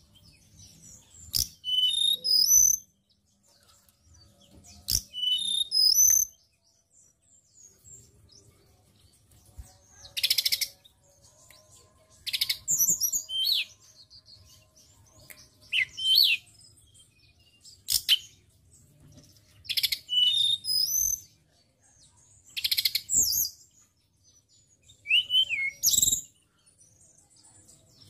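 Male hill blue flycatcher (tledekan gunung) singing: short, high, quick twittering phrases about every two to three seconds, some of them harsh, buzzy rattles.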